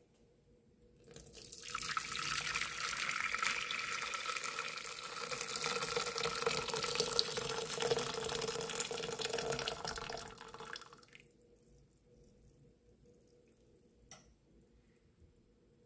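Hot water poured from a stainless steel kettle into an empty nonstick pot: a steady splashing pour that starts about a second in and lasts about ten seconds. A faint click follows near the end.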